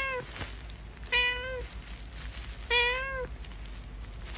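Domestic cat meowing in a string of short, level-pitched meows, about one every second and a half.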